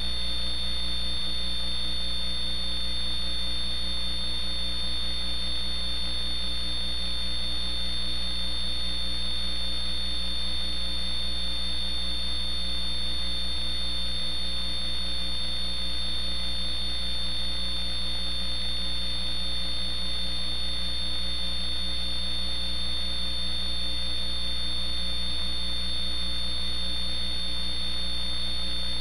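Steady electrical hum with a high, thin whine and faint hiss, unchanging throughout.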